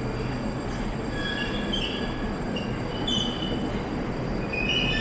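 Metro train running along the platform: a steady rumble, with high wheel squeals coming and going.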